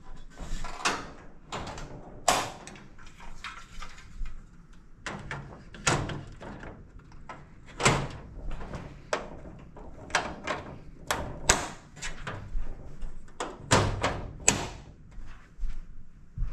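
Collapsible K&J dog crate being assembled: its side rail and panels knock and clack together and the latches are snapped shut, a run of irregular sharp clacks and knocks, some loud.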